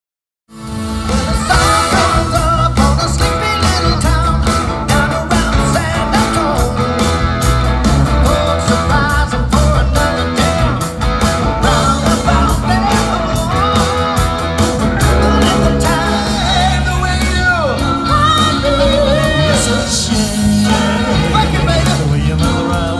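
A rock band playing live, with electric guitars, keyboard and a singer over a steady beat. The music starts abruptly about half a second in.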